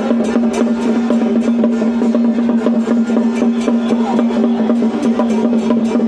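Music with busy, rapid drumming and percussion over a steady held tone.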